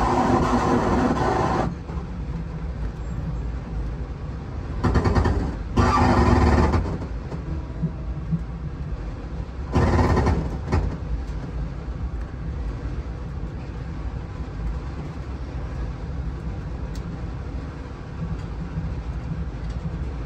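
Steady low rumble of a moving vehicle, broken by several louder bursts of noise during the first half.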